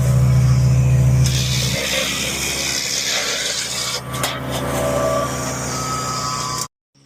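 Gasoline engine of a MechMaxx wood chipper running with a steady low hum that drops away about two seconds in, leaving a rougher noise with a couple of knocks. The sound cuts off abruptly near the end.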